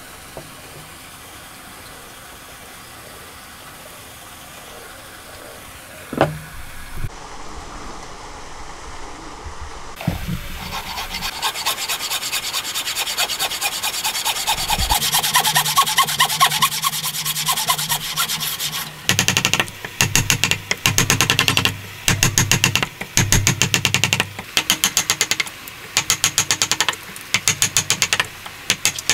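A thin-bladed hand saw cutting a dovetail into a hardwood block in fast, continuous strokes that grow louder. It then breaks into short rasping bursts about a second apart. A single wooden knock comes earlier, in an otherwise quiet stretch.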